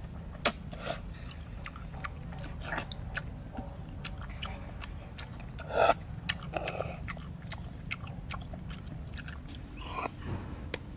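Mouth sounds of eating cooked field snails: slurping and sucking the meat out of the shells, with chewing and many small clicks. The loudest is a short slurp a little before halfway.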